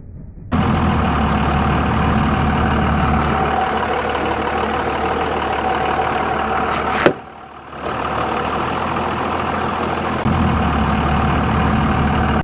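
Cummins 5.9-litre inline-six turbo-diesel of a 2000 Dodge Ram 2500 running, a steady low diesel drone. It cuts in abruptly, drops out for under a second after a click just past halfway, and comes back louder for the last two seconds before stopping abruptly.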